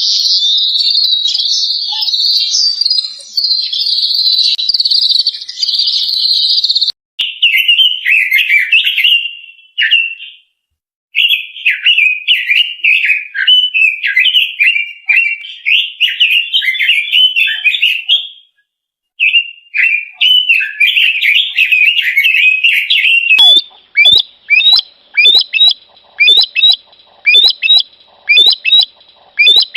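Songbirds singing: loud, fast warbling chirps, broken off abruptly a few times as one bird recording gives way to another. About three quarters of the way through it changes to short, sharp calls repeated a little faster than once a second.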